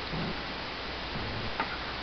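Steady background hiss with a few faint, irregular clicks and soft low knocks from small handling noises.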